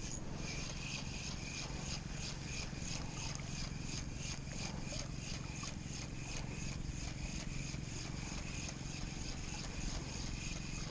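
A high chirping call repeated evenly about four times a second, over a low steady rumble.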